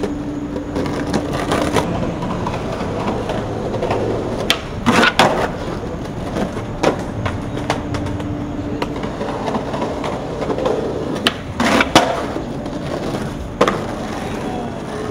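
Skateboard wheels rolling on concrete, broken by sharp cracks of the board's tail popping and the deck and wheels slapping down, with the loudest hits about five seconds in and again about twelve seconds in.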